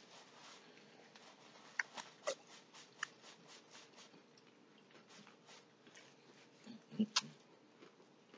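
Faint eating and table-handling sounds: soft, evenly spaced chewing at about three strokes a second, with a few sharp clicks of shellfish and a paper napkin being handled, the loudest near the end.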